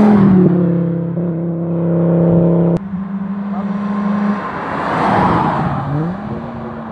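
Cars driving past one after another under power. First an Audi coupé passes close by, its engine note dropping as it goes past. The sound breaks off abruptly about three seconds in, then a second car's engine approaches and rises in pitch as it accelerates near the end.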